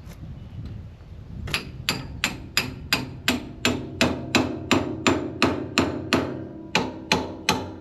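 Repeated hammer blows on a steel tie rod end separator fork (pickle fork), driven in to pop a tie rod end off the backhoe's steering linkage. About three ringing metal strikes a second, starting about a second and a half in, with a short break near the end.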